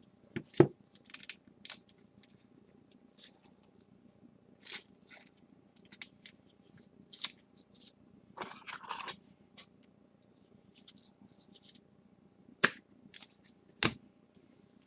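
Scattered light clicks, taps and rustles of trading cards being handled. There are a few sharper clicks near the start and near the end, and a short rustle about eight seconds in.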